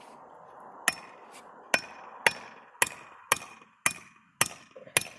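Back of a hatchet hammering a metal trap stake into the mud: about eight sharp, ringing blows, roughly two a second, starting about a second in.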